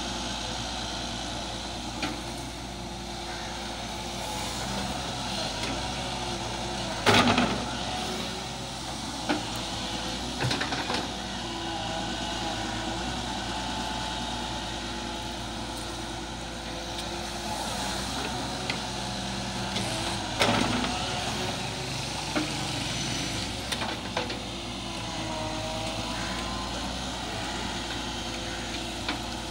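Volvo EW145B wheeled excavator's diesel engine running steadily while it digs, with a few sharp knocks, the loudest about seven seconds and twenty seconds in.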